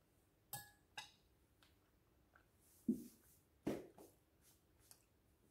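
A metal spoon clinks twice against a ceramic bowl with a brief ring, then two louder, duller knocks as it is set down in the bowl, among faint small mouth ticks from eating.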